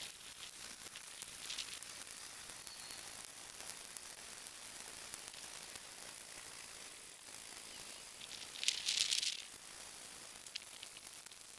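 Roasting coffee beans rattling in a steel pot as a wire whisk stirs them, over a steady hiss from a cassette gas burner. There is a short burst of rattling about a second and a half in, and a louder one near nine seconds.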